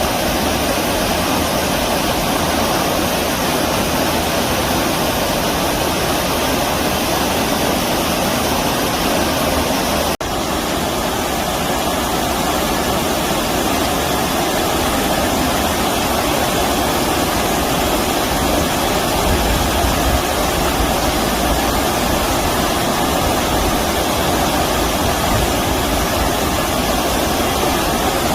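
Steady rush of stream water flowing over rocks, with a momentary break about ten seconds in.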